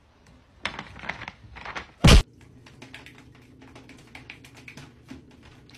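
Light scattered taps and clicks, a cat's paws batting at a ribbed plastic hose, over a faint steady low hum. One loud sharp knock comes about two seconds in.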